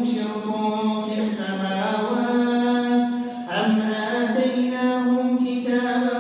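A man's melodic Quran recitation in tajweed style, long vowels held on steady notes that step up and down in pitch from phrase to phrase.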